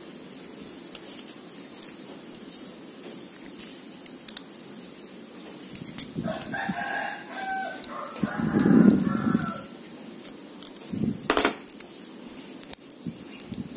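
A rooster crowing for a few seconds around the middle, the loudest sound here. Around it, light scratching clicks as a cutter blade scrapes the enamel off copper magnet wire, with one sharper click near the end.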